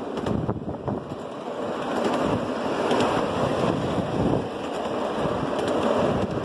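Ride-on miniature railway cars rolling along the track: a steady rumble of wheels on rail with a few faint clicks, mixed with wind buffeting the microphone.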